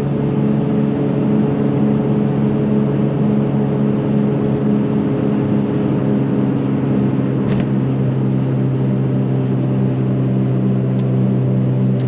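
Car engine holding a steady drone at cruising speed, with road noise, heard from inside the cabin. A sharp click comes about halfway through.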